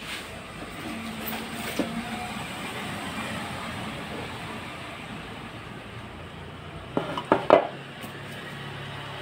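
Hard plastic armrest parts being handled, knocking and clacking together a few times about seven seconds in, over a steady background hum.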